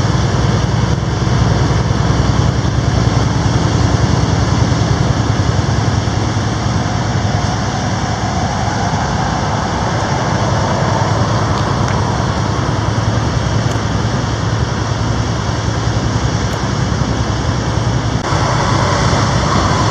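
Steady drone of a loaded semi truck's engine and tyre noise, heard from inside the cab while it cruises on the highway.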